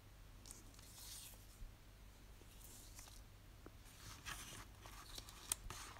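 Faint rustling of paper scraps and cards being handled and laid on a notebook page, with a few light taps, busier in the second half.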